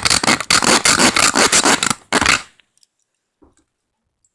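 A metal-cutting saw sawing at the release button of a pair of toy handcuffs in quick back-and-forth strokes, stopping about two and a half seconds in.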